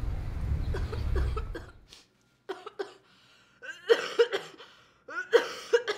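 Low city-traffic rumble that fades out about two seconds in, then a woman coughing into her hand in three short fits, several coughs in each: a sick cough that she takes for COVID.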